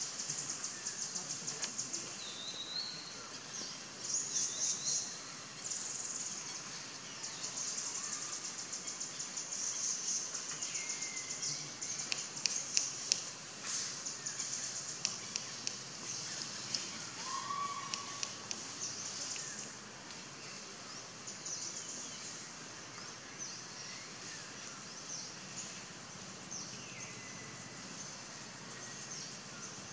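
Forest ambience of birds: high-pitched rapid trills in repeated short bouts, with a few short falling chirps and a handful of sharp ticks in the middle.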